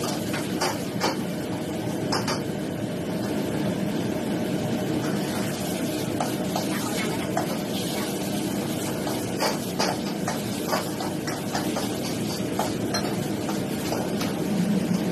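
Stir-frying vegetables in a wok on a gas wok burner: a metal ladle scrapes and clinks against the wok several times over a steady background rush.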